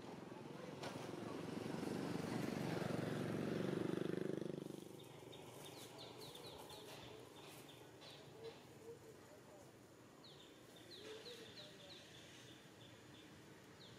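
A motor vehicle engine drones louder over about four seconds and fades away about five seconds in. After it, birds chirp in quick high series.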